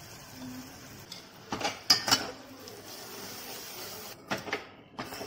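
Steel spoon clinking and scraping against an aluminium cooking pot as chicken pieces are stirred into the masala: a few sharp knocks about one and a half to two seconds in, and more near the end.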